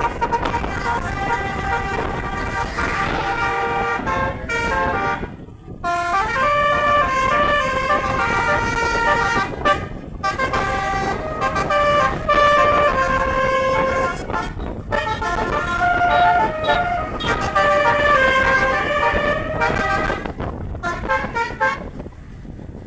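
A bus's multi-trumpet 'telolet' horn playing a tune of quick stepping notes, with short breaks, over a low rumble. It stops about a second before the end.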